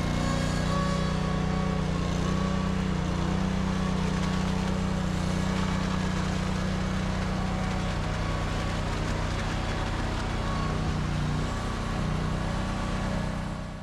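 An engine running steadily at constant speed, then cut off abruptly at the end.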